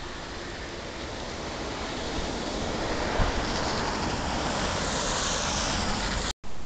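Steady rushing of wind in a snowstorm, swelling over the first few seconds and then holding, before it cuts off abruptly near the end.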